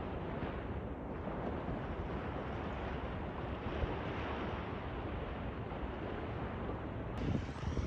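Steady wind buffeting the phone's microphone, mixed with the soft wash of a calm sea on the shore.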